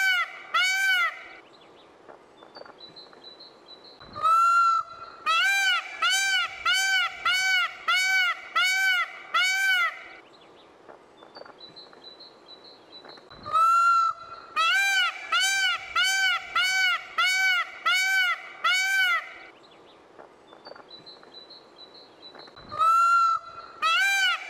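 Indian peafowl (peacock) calling loudly in repeated bouts about every nine seconds. Each bout opens with a longer rising call, then runs on as a quick series of short honking calls at about two a second.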